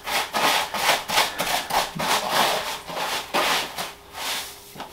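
Damp perlite being mixed with water by hand in a plastic tub: repeated gritty crunching and scraping strokes, several a second, quieter near the end.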